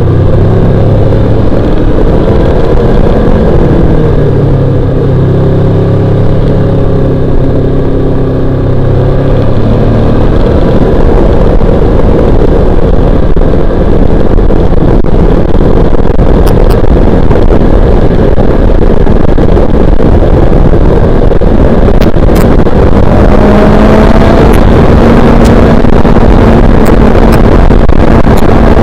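Honda VFR800X Crossrunner's V4 engine running under way, its note rising and falling with the throttle for the first ten seconds or so. After that it is mostly buried under heavy wind rush on the bike-mounted camera's microphone.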